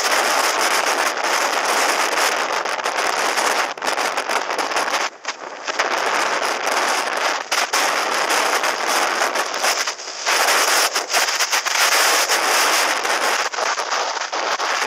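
Wind rushing over a helmet camera's microphone on a motorcycle moving at road speed, with frequent brief crackles and cut-outs. There is no clear engine note.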